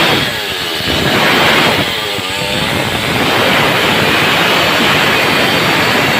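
Stihl two-stroke chainsaw running at high revs. It eases off briefly twice in the first three seconds, then runs flat out again.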